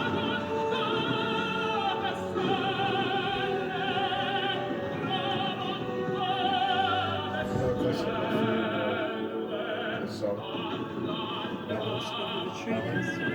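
Operatic singing with orchestral backing, a solo voice holding long notes with a wide vibrato, playing from a television.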